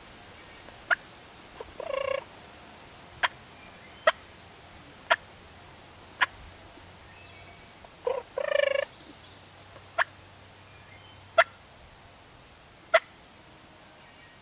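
Turkey calling: two short, rattling gobble-like bursts, about two seconds in and past the middle, and a scattering of sharp single clucks roughly every one to two seconds.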